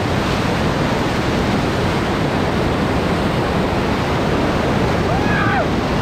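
Whitewater rapids rushing and crashing over and around an inflatable raft, heard up close as a dense, unbroken wash of water noise. A brief shout rises over it about five seconds in.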